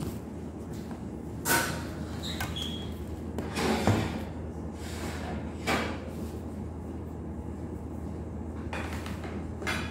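Kitchen handling noises: four brief knocks and scrapes, the loudest about four seconds in, over a steady low hum.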